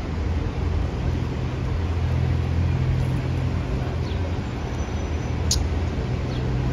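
Diesel engine of an articulated city bus running with a steady low hum as it creeps forward in street traffic, with a short sharp click about five and a half seconds in.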